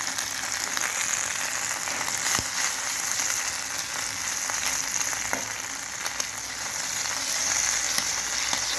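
Squid (calamari) frying in hot oil: a steady sizzle with scattered sharp pops.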